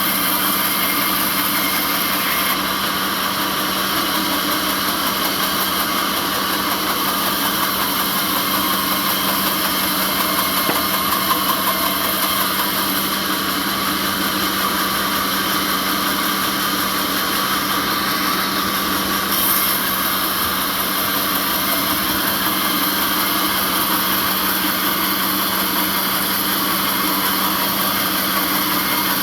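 Sawmill machinery running steadily: a constant, unchanging mechanical hum with a fixed tone.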